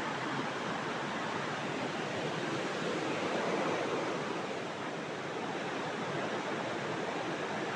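River water rushing steadily, a constant even noise that swells slightly about three to four seconds in.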